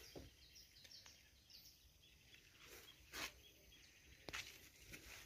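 Near silence: faint outdoor background with a few faint bird chirps, and two soft knocks about three and four seconds in.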